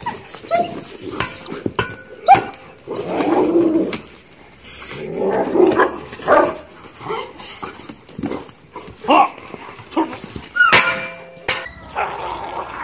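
Dogs fighting: rough growling and snarling, broken by short yelps and barks, with sharp knocks and clicks throughout.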